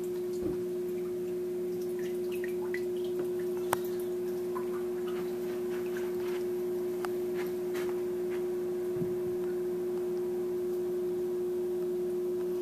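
Steady hum of reef aquarium equipment with faint drips and trickling water, and one sharp click a little under four seconds in.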